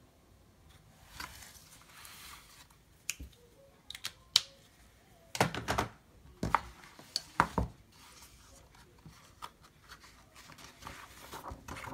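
Desk handling sounds: a faint scratch of a marker drawn along a plastic ruler on paper, then sharp clicks and a cluster of loud knocks and taps about halfway through as the ruler and marker are put down on the desk and the notebook is handled.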